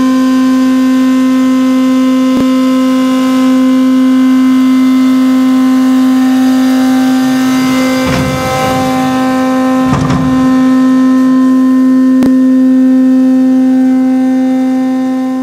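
Hurco vertical machining center end-milling 17-4 stainless steel with a four-flute solid carbide end mill, the cut giving off a loud, steady, high-pitched singing tone. The tone turns briefly rough around the middle, with a couple of short clicks, then fades near the end.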